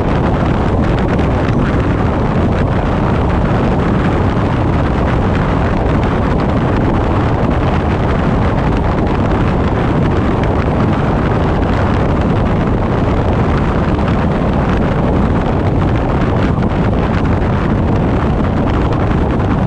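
Steady wind rush on a car-mounted GoPro Hero 7's microphone, mixed with the car's tyre and road noise while driving.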